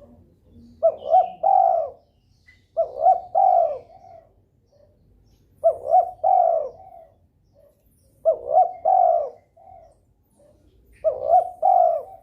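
Spotted dove (derkuku) cooing: a phrase of three quick coo notes with a softer trailing note, repeated five times about every two and a half seconds. It is a bird in breeding condition calling steadily.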